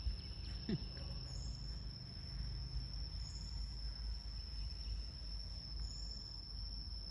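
Outdoor ambience of insects: one steady high-pitched drone held throughout, over a low rumble, with a brief falling note about a second in.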